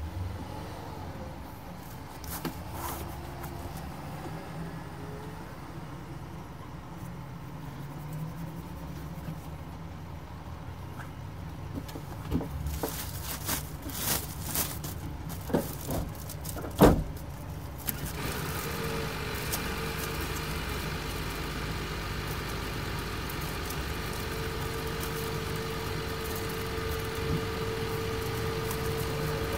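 Low steady hum of a Mercedes-Benz Axor truck's diesel engine idling, heard inside the cab. Around the middle, plastic sheeting is rustled and knocked about in a string of knocks, one sharp knock the loudest. After that a louder, higher whirr with a steady tone runs on.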